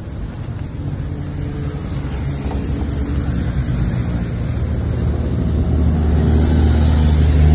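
Motorcycle engine running at low speed, a steady low hum that grows gradually louder toward the end.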